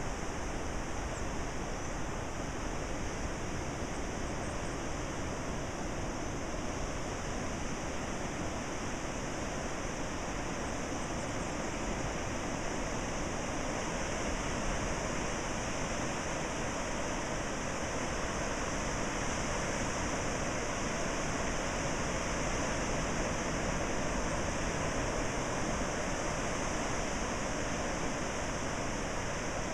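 Ocean surf breaking along a sandy beach, heard as a continuous, even rush of waves with no single crash standing out.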